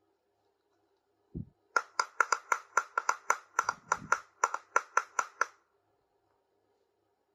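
A quick, even run of about twenty light clicking taps, some five a second for nearly four seconds, as small plastic toy kitchen pieces are tapped together; a single soft thump just before it.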